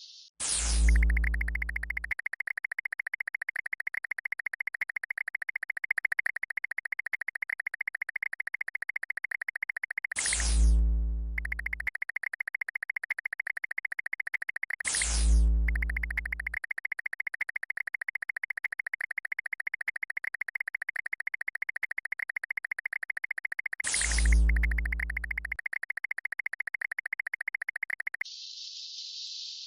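Synthesized electronic sound effects: a rapid buzzing, pulsing tone, broken four times by a quick pitch sweep and a low boom lasting about a second and a half. It cuts off about a second and a half before the end, giving way to a hiss.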